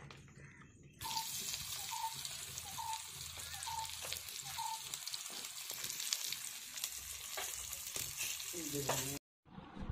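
Spice-coated fish frying in hot oil in a pan, a dense sizzle full of small crackles. It starts about a second in and cuts off abruptly near the end.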